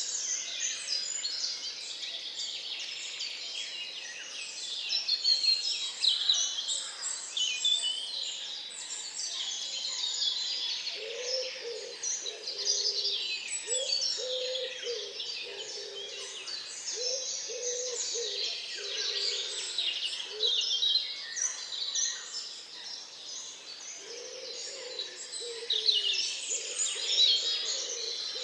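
Swamp-forest dawn chorus: many birds singing at once in a dense, high tangle. Under it, a low call repeats in a steady series, about one note every second, starting about a third of the way in and returning near the end.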